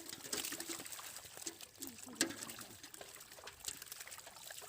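Faint water trickling and splashing, with many small clicks and taps.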